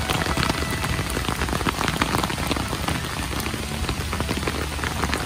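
Steady heavy rain falling on a pond and on wet concrete steps and paving, with many separate close drop hits standing out.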